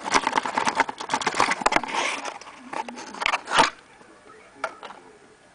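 Close handling noise: quick crackling, rustling and clicking of plastic being handled, ending in one sharp click about three and a half seconds in, then only a few faint clicks.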